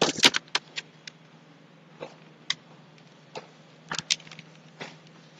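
Sharp clicks of a computer mouse and keyboard: a quick run of clicks at the start, then single clicks every half second to a second, over a steady low electrical hum.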